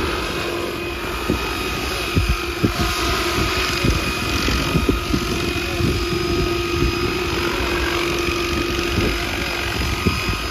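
Electric 800-size RC helicopter, a SAB Goblin Maverick–Kraken hybrid, flying: a steady whine from its motor and rotors, with irregular low thumps of wind on the microphone.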